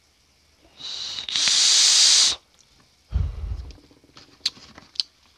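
Vape mod being drawn on: a loud hiss for about a second and a half that cuts off sharply. About a second later comes a short, breathy low gust as the vapour cloud is exhaled, then two light clicks.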